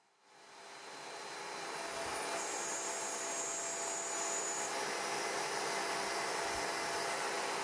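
CNC-Step High-Z S-720/T CNC router with a vacuum cleaner on its dust-extraction shoe starting up: a steady rushing noise swells up over about two seconds and then holds level. A high whine sounds from about two and a half to nearly five seconds in.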